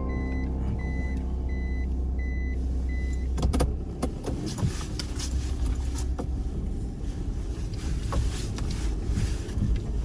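A car running with a steady low drone. A run of short, evenly spaced high beeps sounds in the first three seconds. From about three and a half seconds in, frequent knocks and rattles join a rougher rumble.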